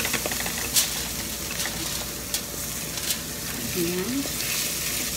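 Chopped onion, garlic and ginger sizzling in hot oil in a metal wok, stirred with a spatula that scrapes and knocks against the pan a few times.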